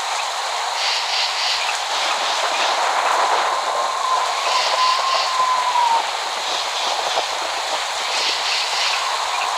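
Steady rain falling with an even hiss. A faint whistle-like tone holds through the middle and drops off about six seconds in. No thunder.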